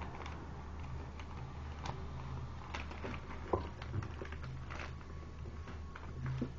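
Paper being handled and folded by hand: scattered, irregular soft crinkles and taps over a steady low hum.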